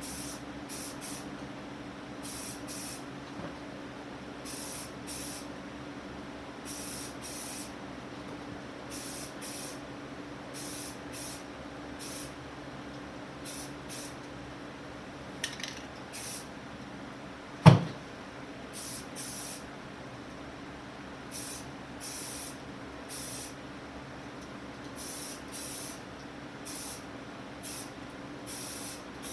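Rust-Oleum Camouflage aerosol spray paint hissing out in short bursts of about half a second, mostly in quick runs of two or three, as stripes are laid on. Under it runs a steady fan hum, and a single sharp knock comes about eighteen seconds in.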